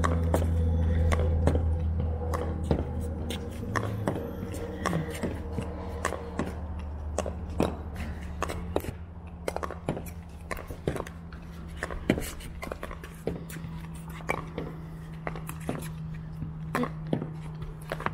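Pickleball paddles hitting the plastic ball: sharp, irregular pops, sometimes two or three a second, over a low steady hum that is louder in the first few seconds.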